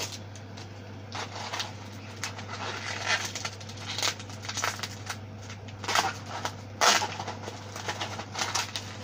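Crinkling and rustling of plastic snack-packet wrappers being handled, in irregular bursts with sharp crackles, loudest about seven seconds in, over a steady low hum.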